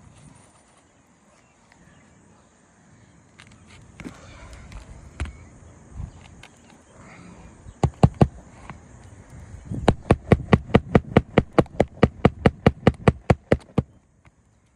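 Hammer driving roofing nails through a shingle: scattered light taps, a pair of sharp strikes about eight seconds in, then a fast run of about five strikes a second for some four seconds near the end. The nails go in easily, which the roofer takes as a sign that the roof decking is soft.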